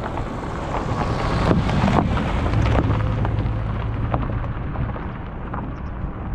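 Strong wind rushing against the microphone, a steady low rumble with a few sharp knocks, and a low hum for a couple of seconds in the middle.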